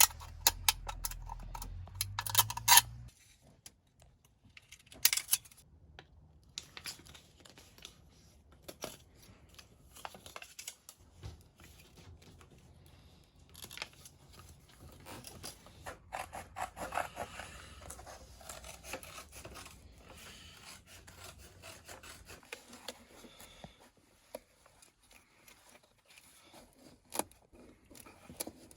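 Irregular clicks, taps and scraping from hand work with tools and materials. A few louder knocks come near the start and about five seconds in, and a faint low hum comes and goes.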